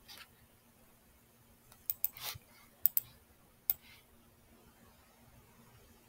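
A handful of sharp clicks from a computer mouse and keyboard, bunched together about two to four seconds in, over a faint steady hum.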